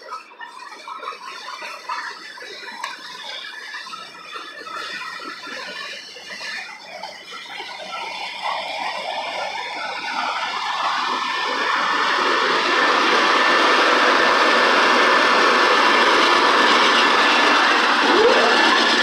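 Freight cars roll by on the rails. Then the train's rear locomotive, a GE C44-9W diesel, comes alongside and passes, its engine and wheels getting louder from about eight seconds in and staying loud and steady to the end. A short rising squeal sounds near the end.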